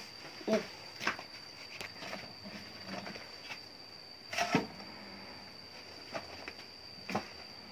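Split firewood sticks knocking and clattering as they are handled and laid on a hearth, a handful of separate knocks with the loudest about four and a half seconds in. A steady high-pitched whine runs underneath.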